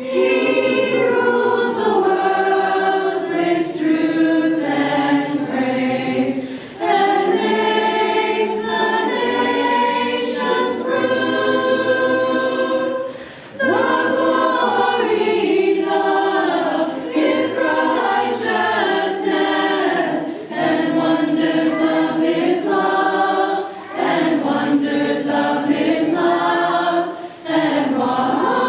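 A choir singing, in sustained phrases several seconds long with brief breaks between them.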